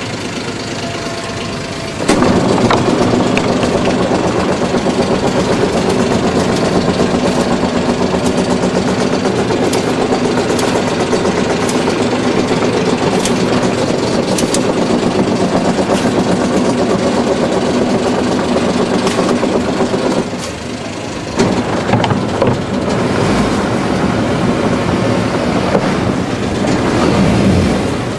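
Small fishing boat's engine running steadily. It gets louder about two seconds in, eases off for a moment about twenty seconds in, then picks up again until near the end.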